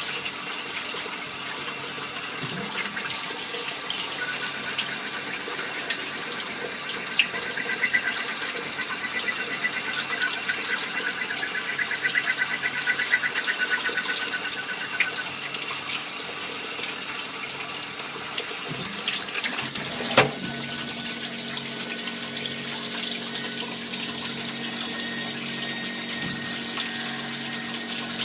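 Multi-function automatic lathe turning small-diameter parts, with a steady splashing of coolant. A wavering high cutting whine runs through the first half. About two-thirds through there is a sharp knock, after which a steady low hum sets in.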